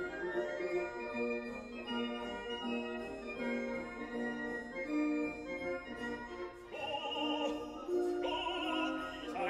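Background classical music: held keyboard chords, then an operatic singing voice with heavy vibrato comes in near the end.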